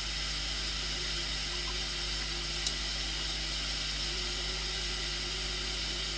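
Steady background hiss with a low electrical hum underneath, and one faint tick about two and a half seconds in.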